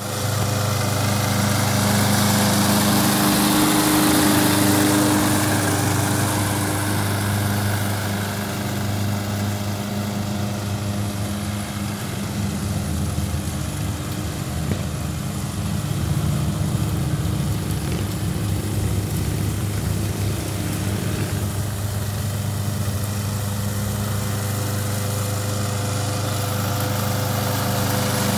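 Small petrol engine of a walk-behind rotary lawn mower running steadily with no one at the handle. Its level swells and fades gently as it moves nearer and farther while circling on its tether.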